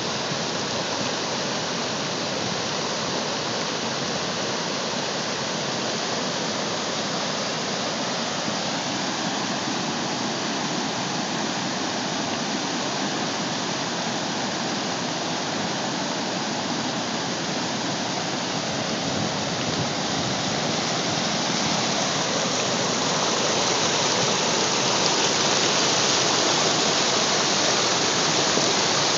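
Muddy flash-flood water rushing in a steady torrent across a desert road and wash, louder near the end.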